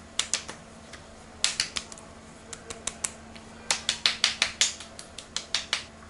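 Hands patting skincare into the face: quick sharp slaps in runs of four to seven, with short pauses between the runs.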